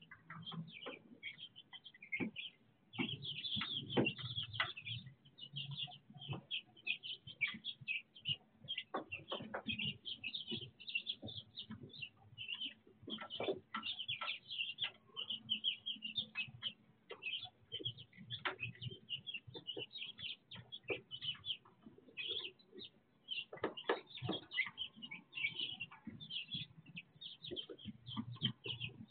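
A brood of young chicks peeping without pause, many short high chirps overlapping one another, with occasional soft knocks in between.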